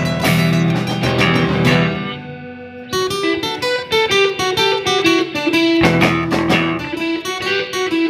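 Live rock band playing, with strummed acoustic guitar, electric guitars, bass and drums. About two seconds in the band drops to a brief quieter break, then comes back in with drum hits and picked guitar notes.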